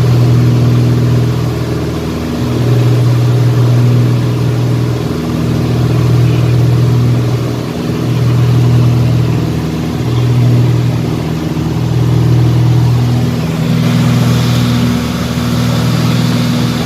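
Steady engine drone with a strong low hum and its overtones, swelling and fading in a slow beat about every two seconds.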